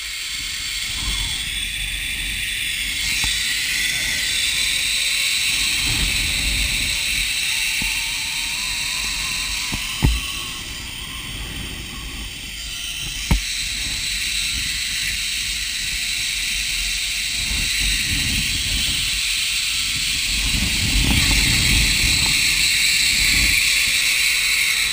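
Zip-line trolley pulleys running fast along a steel cable, a steady high whirring hiss, with wind buffeting the microphone in gusts. Two sharp knocks come about ten and thirteen seconds in.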